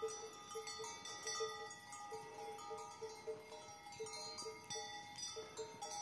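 Faint background music of soft, chime-like notes: a short note repeating about three times a second under higher held notes that step between pitches.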